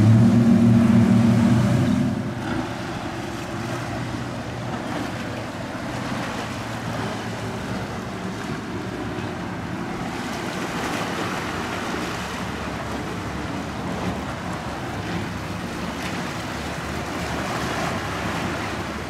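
Center console boat engines running through the inlet, loud for the first two seconds and then fading. Steady surf and wind noise fill the rest.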